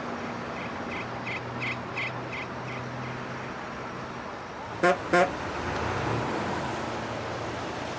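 Vehicle horn honking twice, short and loud, about five seconds in. Before it there is a run of about seven quick high beeps. A truck engine runs steadily throughout.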